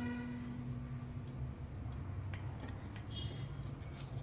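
Faint, scattered light taps and rubbing as a jaggery-stuffed dough round is pressed flat by hand on a marble rolling board, with a hand dipping into a steel plate of flour near the end, over a steady low hum. A fading ring dies away in the first second and a half.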